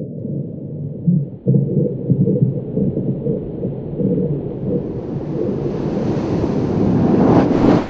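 Underwater horror ambience: a muffled, low underwater rumble that gradually brightens and grows louder, then cuts off suddenly near the end.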